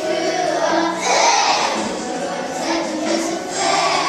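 A group of young children singing a song together in unison, with musical accompaniment, in phrases of held notes.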